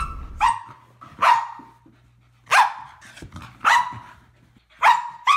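Shetland sheepdog barking loudly, six sharp single barks roughly a second apart.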